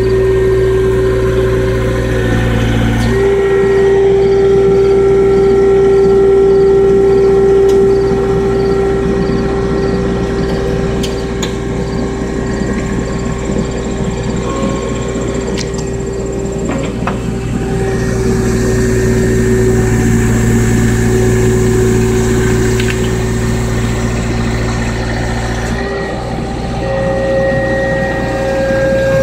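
Skid steer engine running steadily with a whine whose pitch shifts a few times as its hydraulics work a Vermeer TS30 tree spade.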